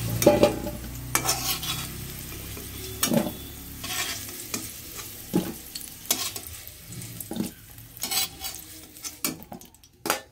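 Metal spatula scraping and clinking against a metal kadai, about once a second, as fried potato cubes are scooped out, over a light sizzle of the hot oil that fades as the pan empties.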